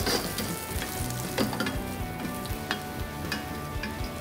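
Sliced garlic and red pepper flakes sizzling in olive oil in a pan. A wooden spatula stirs them, giving scattered clicks and scrapes against the pan.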